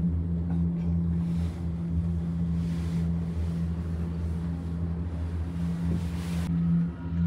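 A steady low mechanical hum under a wash of wind-like noise that swells a few times and drops away near the end.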